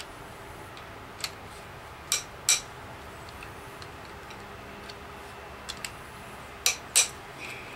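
Sharp metallic clinks of a steel socket and wrench on a small-block Chevy's connecting-rod nuts: a single clink, then three pairs a few seconds apart, the loudest pair near the end.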